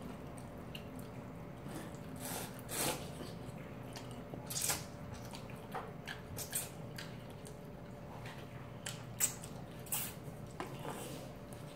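Close-up eating sounds: wet slurps of cold naengmyeon noodles and chewing, in short separate bursts every second or two, over a faint steady hum.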